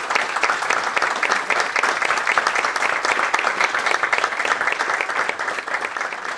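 Audience applauding: dense, steady clapping from many hands, starting to thin out near the end.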